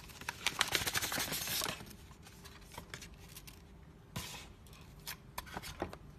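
Packaging being handled: cardboard and foam packing inserts rustling and scraping, busiest in the first couple of seconds, then lighter clicks and a short rustle about four seconds in.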